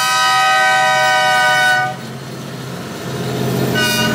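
Locomotive air horn on a Union Pacific C44AC sounding a loud chord of several notes, which cuts off about two seconds in. A quieter diesel locomotive rumble follows, with a brief second horn blast near the end.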